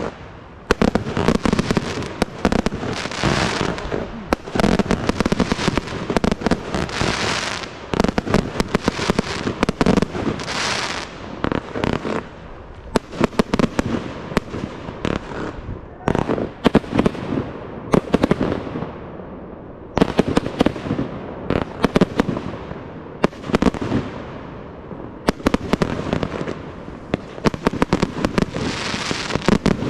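Fireworks display: a rapid stream of sharp launch and burst reports with crackling stars, coming in dense clusters with brief lulls every few seconds.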